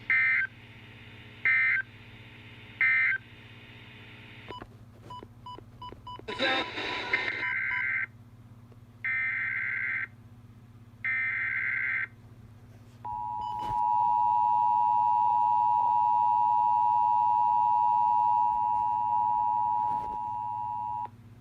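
Emergency Alert System data and tones. First come three short, loud warbling digital bursts: the end-of-message code closing the previous alert. After some clicks and a moment of static come three longer data bursts, the SAME header announcing the next alert. Then the two-tone EAS attention signal sounds steadily for about eight seconds and cuts off.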